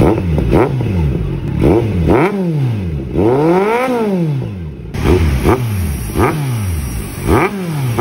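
Kawasaki Z900's inline-four engine revved through a Villain slip-on exhaust canister on a mid-pipe: a string of quick throttle blips, each rising and falling in pitch, with one longer, higher rev about four seconds in.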